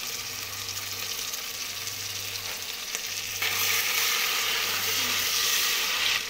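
Sliced onions and ginger-garlic paste sizzling in hot oil in an aluminium pressure cooker while a steel spoon stirs them. The sizzle gets louder about three and a half seconds in, over a steady low hum.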